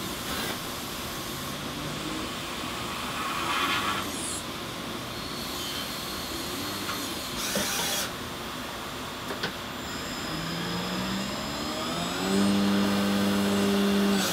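Citizen Cincom L32 sliding-head CNC lathe turning brass: a steady hiss of cutting and coolant, with brief louder bursts around four and seven seconds in. From about ten seconds in, a motor whine rises in pitch and then holds steady near the end.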